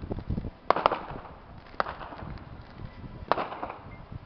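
Fireworks going off: three sharp bangs, the first doubled about a second in, another near two seconds and a last past three seconds, each with a short echoing tail and lighter cracks between.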